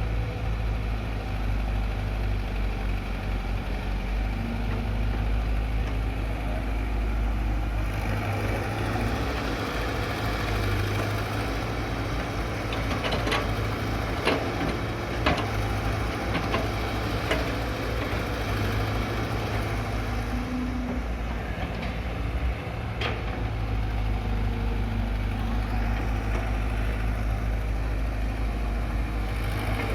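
A heavy diesel engine running steadily, with a scatter of sharp knocks about halfway through and one more a little later.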